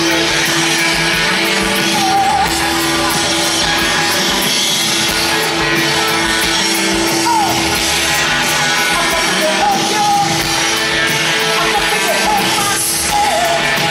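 Rock band playing live through a PA, heard from the audience: electric guitar, bass and drums driving steadily, with a woman singing and shouting into the microphone.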